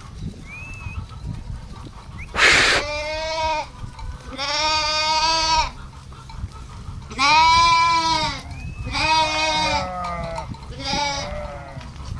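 A sheep bleating five times, each call an arching, wavering bleat, with gaps of one to two seconds between them and the last call the shortest. A short rushing noise comes just before the first bleat.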